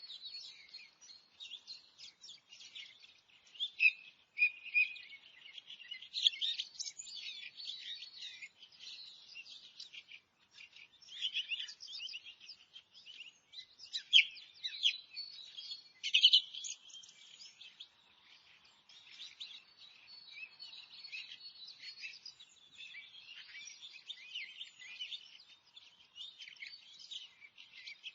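Chorus of several forest birds singing and chirping at once: a dense, continuous stream of short high calls and trills, with a few louder calls standing out now and then.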